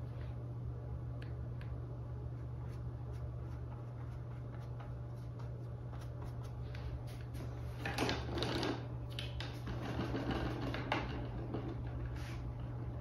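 Stiff paintbrush bristles scratching and scrubbing against canvas in quick strokes, loudest in two spells about eight and ten seconds in, over a steady low hum.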